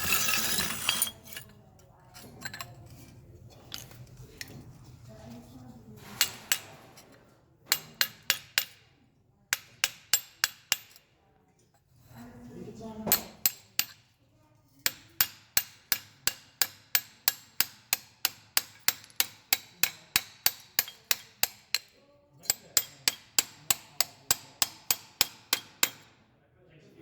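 A hammer striking metal in rapid, even runs of about three blows a second, with short pauses between runs, knocking the mold material off a cast bronze piece.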